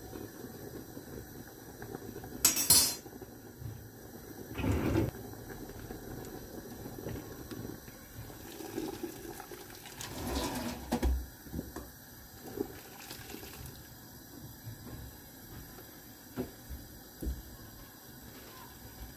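Metal tongs knocking against a stainless steel pot as blanched cabbage leaves are lifted out of the hot cooking water, with the water splashing and dripping. The loudest sound is a sharp clink about two and a half seconds in, followed by splashes about five and ten seconds in and a few lighter knocks.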